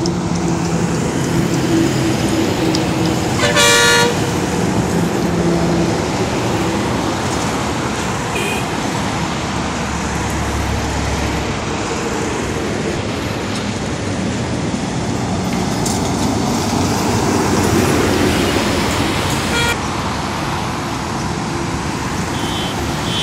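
Highway traffic passing close by: trucks and cars rushing past, with a truck's engine drone fading over the first six seconds. A loud horn blast sounds about four seconds in, followed by a few shorter horn toots later.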